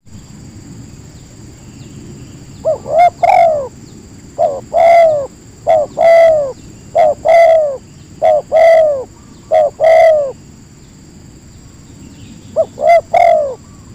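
A dove cooing in a run of repeated phrases, each a short note followed by a longer arching coo. After a pause it starts again near the end.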